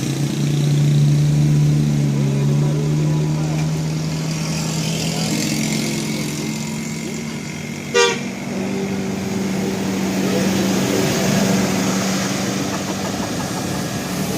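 A bus's engine running and its horn sounding, heard as steady low tones over street noise. A single sharp knock comes about eight seconds in.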